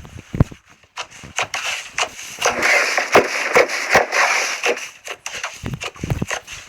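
Slime being squeezed and pressed, giving a dense, irregular run of crackling pops and clicks, with a few heavier squelching thuds near the end.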